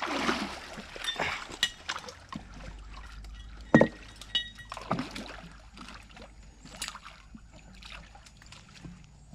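Water sloshing and splashing as a person wades in a pond and tugs at something under water among submerged tree limbs. Scattered sharp knocks and snaps come through, the sharpest just under four seconds in.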